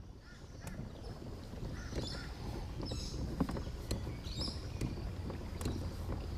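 Kayak on the water: paddle splashes and water noise over wind buffeting the microphone, with birds chirping.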